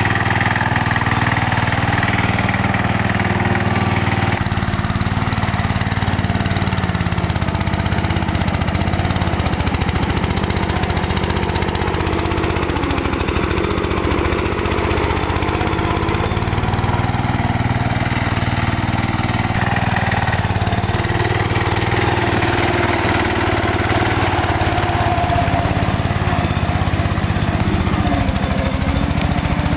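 Small engine of an MTD 990 riding mower, converted into a mud mower, running steadily with small rises and dips in engine speed.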